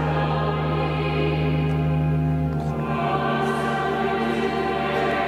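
Cathedral choir of children's and men's voices singing held chords, with steady low notes beneath; the chord changes about halfway through.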